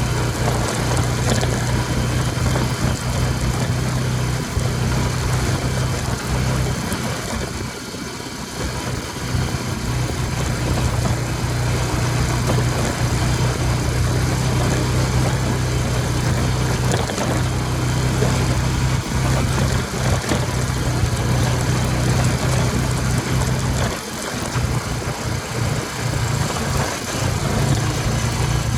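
An ATV engine running steadily under way, its low hum continuous, with brief drops in loudness about eight seconds and again about twenty-four seconds in.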